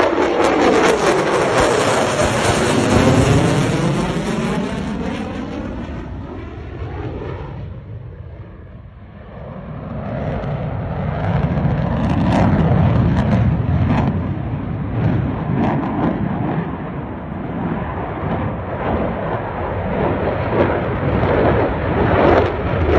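Jet fighter engine noise as an aircraft flies past, with a sweeping, phasing whoosh in the first few seconds. It fades to its quietest about eight to nine seconds in, then builds again to a steady loud jet noise.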